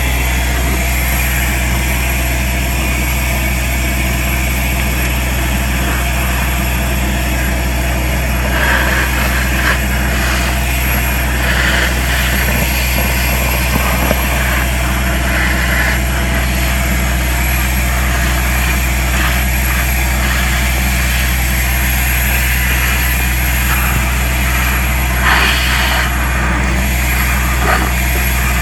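Compact soil vacuum excavator running steadily, a deep hum with air rushing into the suction pipe as it sucks up soil. A few brief harsher bursts come as clumps of soil are drawn up the pipe.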